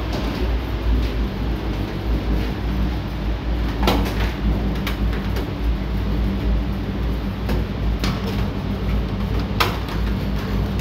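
Steady low electrical hum of substation switchgear, with a few sharp knocks or clicks about four, eight and ten seconds in.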